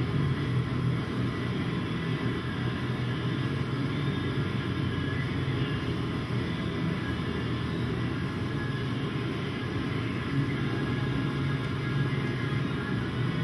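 Steady low mechanical rumble, even in level with no distinct knocks or clicks.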